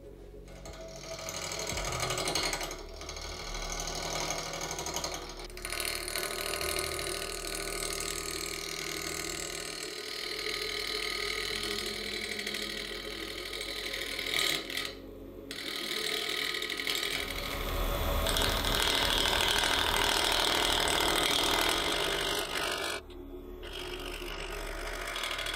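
Robust wood lathe spinning a cube-shaped blank of burl wood and blue resin while a gouge cuts it, a rapid rattling of an interrupted cut as the tool meets the passing corners. The sound briefly drops out about 15 seconds in and again near the end.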